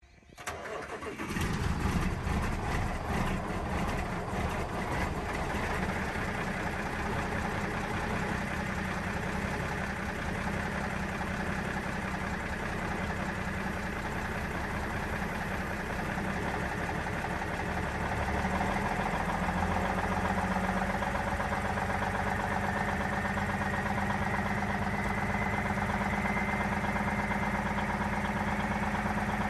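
Peterbilt 359 diesel truck engine starting about a second in and then running steadily. About two-thirds of the way through the sound deepens, and near the end a faint whine slowly rises in pitch.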